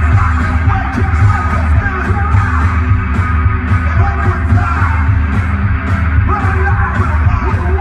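Live rock-and-roll duo playing loudly: a raw, shouted-style vocal over a strummed hollow-body guitar and a steady drum-kit beat with heavy bass.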